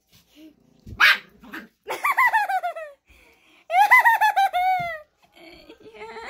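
Small dog barking: one sharp bark about a second in, then two runs of rapid high-pitched yips, each about a second long and falling in pitch.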